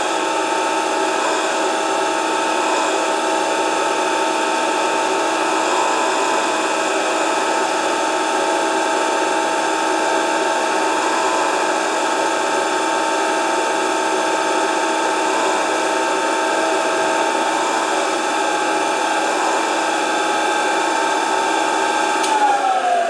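Electric grinder motor running at a steady speed with a constant whine, then winding down about 22 seconds in as it is switched off.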